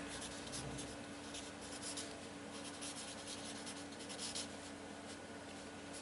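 Marker pen writing on paper: faint, irregular scratching strokes as words are written. A low steady hum sits underneath.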